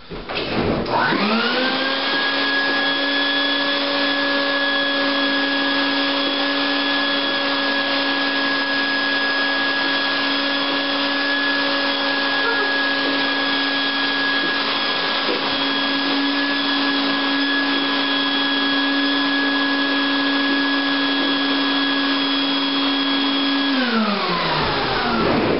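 Shop vac switched on, its motor spinning up to a steady whine over a rush of air, running for about twenty seconds, then switched off and winding down near the end.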